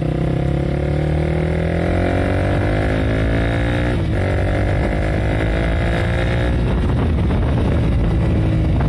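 Honda CBR150R single-cylinder engine accelerating under way: the revs climb, drop briefly at a gear change about four seconds in, then climb again. After about six and a half seconds the engine note turns rougher and noisier.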